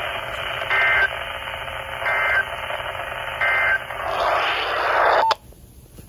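Motorola handheld two-way radio's speaker receiving the end of an Emergency Alert System broadcast: three short, shrill data bursts about 1.3 seconds apart over static hiss, the end-of-message code. The hiss swells, then cuts off suddenly about five seconds in as the signal drops.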